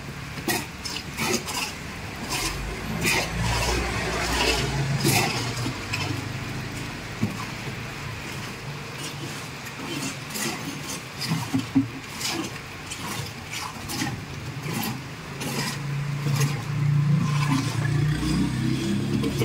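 Low engine rumble of passing vehicles, swelling about three seconds in and again near the end, with scattered sharp clicks.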